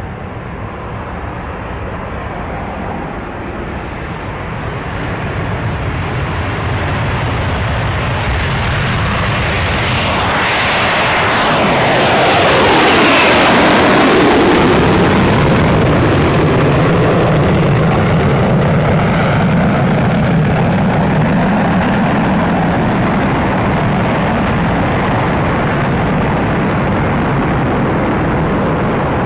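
B-1B Lancer bomber's four afterburning turbofan engines on a takeoff run, swelling louder as the jet approaches. About halfway through it passes close by with a whine that drops in pitch, then settles into a steady low rumble as the bomber climbs away on afterburner.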